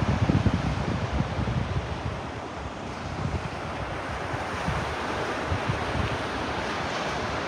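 Surf washing onto a beach, with wind buffeting the microphone; the low buffeting is strongest in the first second or so, then eases.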